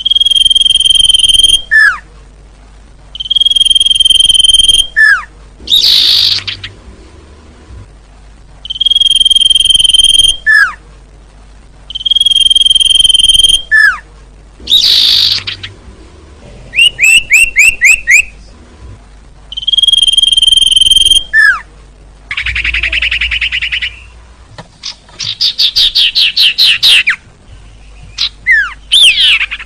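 Recorded song of a sirtu (iora) bird: long steady whistled notes alternate with quick downward slurs, rapid trills and a few harsh chattering bursts. The same phrases recur every few seconds, as in a looped lure call.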